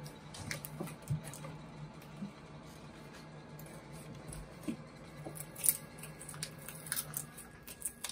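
Hand screwdriver turning out the screws of a door latch faceplate on the door edge: faint scattered metal clicks and scrapes, a few sharper ticks near the end, over a low steady hum.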